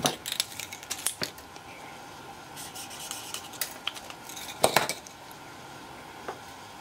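Hand tools and small objects being handled on a workbench: a scatter of sharp clicks, taps and scrapes, loudest about four and a half seconds in. Under it runs a steady hiss of heavy rain on the garage roof.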